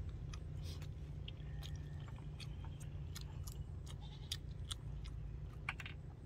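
Person chewing crunchy food, with irregular sharp crunches and clicks, over a steady low rumble.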